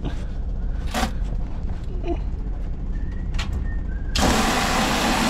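Pressurised hot water rushing out of the opened drain on a hydronic valve with a sudden loud hiss about four seconds in: the isolated line is still under a lot of pressure. A sharp click about a second in comes before it, over a steady low hum.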